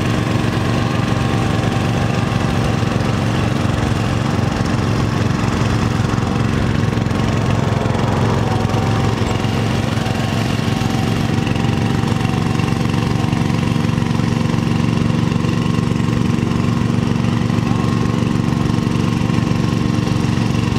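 Allis-Chalmers lawn tractor's engine idling steadily, hitched to the pulling sled before its run.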